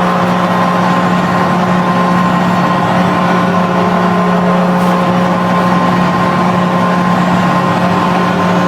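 Barys Astana's ice hockey goal horn sounding one long, steady, low note over a loud, even noisy wash.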